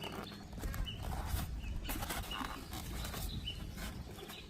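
Rustling and light clicks of packaging and parts being handled, over a low rumble, with a few brief faint bird chirps.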